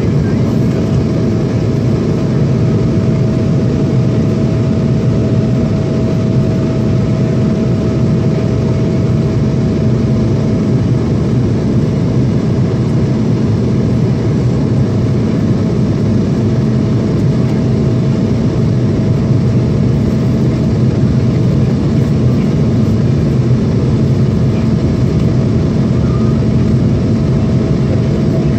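Steady cabin noise of a jet airliner in flight, heard from a window seat over the wing: the engines and rushing air make a loud, even rumble with a faint steady whine above it. The aircraft is descending.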